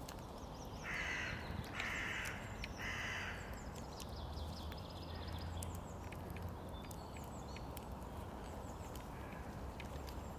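Hooded crow cawing three times, harsh calls about a second apart near the start. Faint high twittering of small birds and a few light clicks follow.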